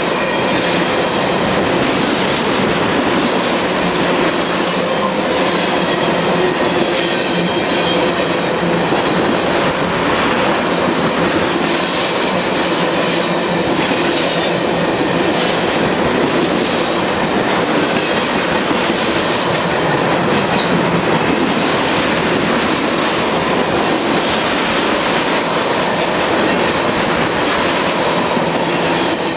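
CSX freight train cars rolling past close by, loud and steady, with steel wheels clattering over the rail joints.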